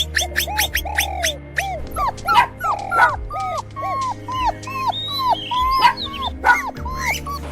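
Dog yipping and whimpering in a quick run of short rising-and-falling yelps, about two to three a second, over background music.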